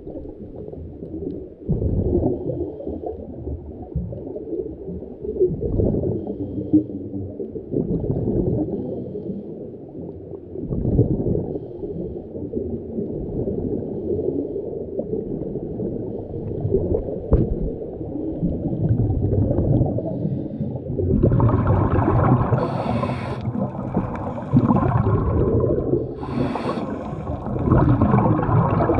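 Muffled underwater noise picked up by a camera during a dive, swelling and fading every few seconds. About two-thirds of the way through it turns brighter and hissier, with a few short sharp hissing bursts.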